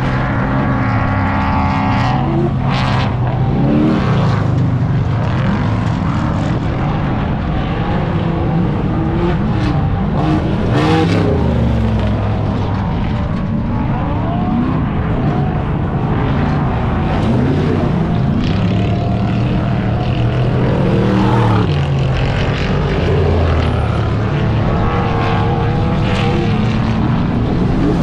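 Several car engines revving hard, their pitch climbing and dropping again and again and overlapping, over a steady rush of noise.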